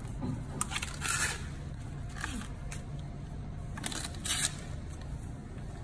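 Giant panda biting and chewing a fresh bamboo shoot: a run of crisp, irregular crunches, the loudest about one second in and again about four seconds in, over a steady low hum.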